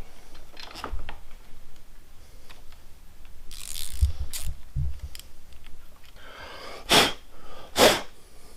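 Short hissing blasts from a nozzle, clearing old thread-locker out of bolt threads: a brief hiss, then a longer one, then two sharp blasts about a second apart near the end. Light knocks of parts being handled come between them.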